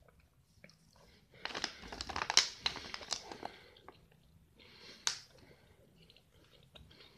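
Plastic pouch of dried mango crinkling as it is handled: a stretch of crinkling for about two seconds starting a second and a half in, then one short crackle about five seconds in.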